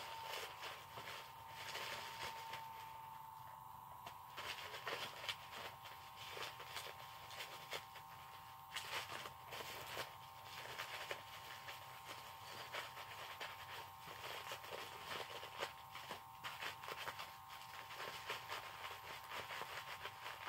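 Faint handling noises: scattered light clicks, taps and rustles as a power-supply breakout board and PCIe cables are packed back into their box, over a faint steady high whine.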